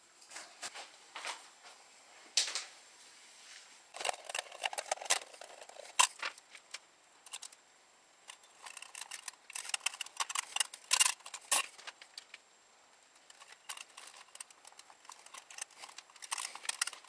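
Handling noise from a cable in corrugated plastic conduit and a thin aluminium cover plate being fitted: irregular clicks, light knocks and rustling, in several short flurries with quiet gaps between.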